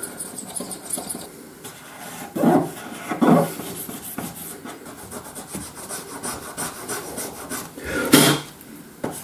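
Cotton swab scrubbing along the edge of a Sony Xperia Z3's frame, a dry, scratchy rubbing in many quick short strokes, as adhesive residue and glass splinters are cleaned off with isopropanol. A few louder short noises stand out about two and a half, three and a half, and eight seconds in.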